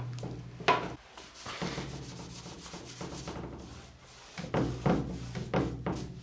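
Repeated rubbing strokes as phosphoric acid is worked onto the sanded steel of a fuel tank, over a steady low hum, with short pauses about one and four seconds in.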